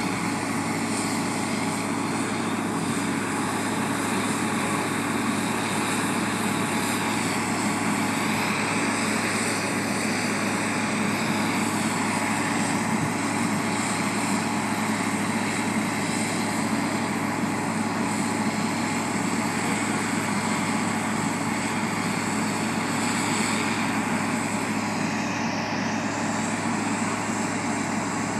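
Heavy diesel engines of a heavy-haul ballast tractor and a large mobile crane running under load as the tractor tows the 500,000-pound crane up a steep grade, a steady low drone.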